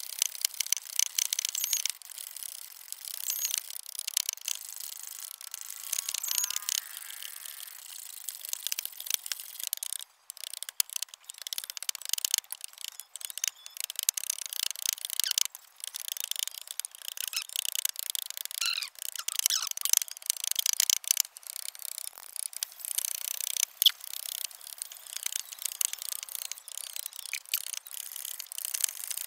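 Hand-held blade paring a piece of wood by hand: rapid, irregular scraping and cutting strokes, with occasional short squeaks.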